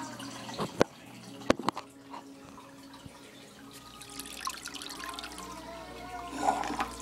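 Aquarium water trickling over a steady low hum, with four sharp clicks in the first two seconds; the trickle grows stronger from about four seconds in.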